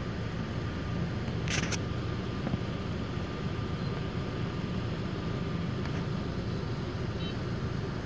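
Steady low rumble inside a car cabin with the engine running, with street traffic behind it. A quick, sharp double click about one and a half seconds in.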